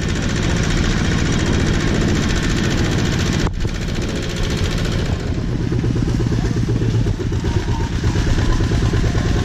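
Single-cylinder diesel engine of a two-wheel walking tractor chugging steadily as it pulls a loaded passenger trailer over a bumpy dirt track. There is a brief break about three and a half seconds in.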